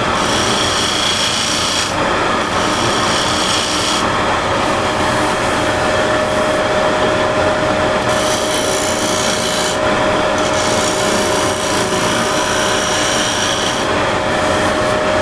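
Wood lathe running with a steady motor whine while a burred scraper cuts the spinning wood, a continuous scraping hiss of shavings that grows and eases every couple of seconds as the tool moves across the surface.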